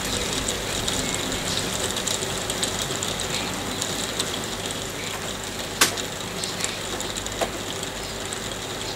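Hailstones pattering steadily as a dense rattle of small ticks, with two sharper single hits standing out about six and seven and a half seconds in.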